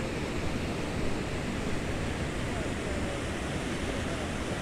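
Steady rush of river water pouring over a spillway and churning below it, with a low rumble of wind on the microphone.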